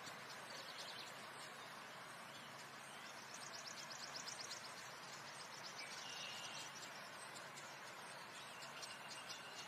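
Faint rustling and crunching of flour and toasted sesame seeds rubbed together by a gloved hand, with quick runs of fine ticks, over birds chirping in the background.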